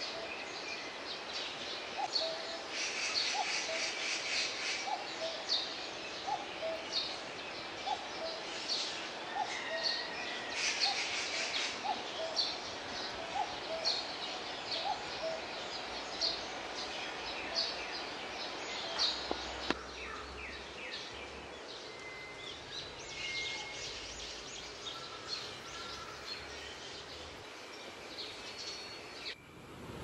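Several birds chirping and singing over a steady outdoor hiss, with a lower short call repeated about once a second through the first half. The background changes abruptly near the end.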